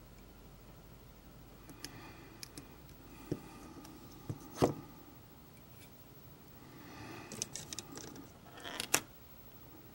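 Light clicks, taps and scrapes from handling a roll of double-sided tape and a hobby knife. The sharpest click comes about halfway through, and a cluster of clicks with a short rasping noise comes near the end.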